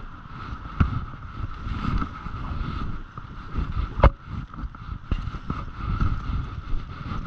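Footsteps shuffling and crunching through deep, dry fallen leaves as the handler walks at a steady pace, with wind buffeting the microphone. A sharp knock about four seconds in, with a smaller one just under a second in.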